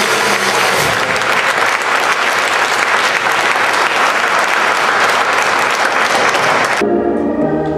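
Audience applauding in a steady, dense clatter of clapping, cut off abruptly about seven seconds in and replaced by music.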